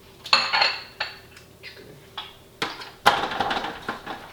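Kitchen utensils clattering against dishes: a series of sharp knocks with a slight ring, then a longer stretch of scraping and rattling near the end.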